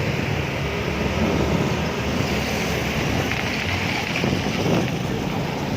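Wind buffeting the microphone: a steady rushing rumble with no distinct events.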